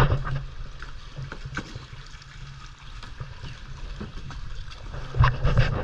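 Sea water splashing and lapping around a plastic sit-on-top kayak as it is paddled, with scattered drips and splashes. Low rumbling thumps on the microphone at the start and again near the end.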